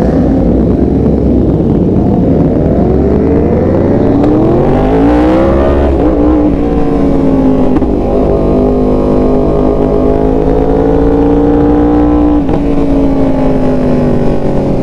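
Sportbike engine under way, heard while riding: it revs up steeply about four seconds in, then runs at a steady speed with a short break in the note about twelve and a half seconds in, over a low rumble of wind and road noise.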